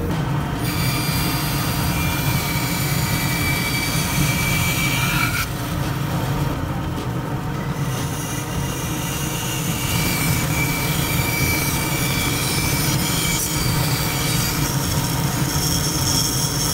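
Bandsaw running and cutting a curve in plywood with a narrow blade: a steady motor hum under the cutting noise, with thin high-pitched squealing from the blade that breaks off briefly about five seconds in and then returns.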